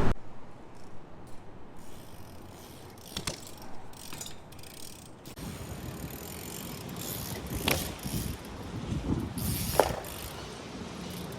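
BMX bike's rear hub ticking as the bike rolls and coasts, with a few sharp knocks from the bike.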